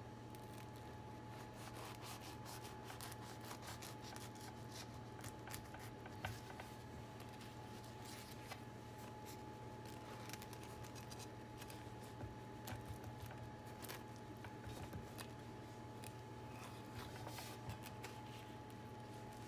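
A knife sawing through the baked crust of a meat-filled bread on a wooden cutting board: faint crackling and scraping strokes, repeated throughout, over a steady faint hum.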